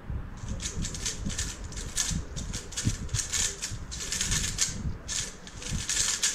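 3x3 speedcube being turned at speed: a fast, dense run of plastic clicks and clacks from the cube's layers, starting about half a second in and stopping just before the end.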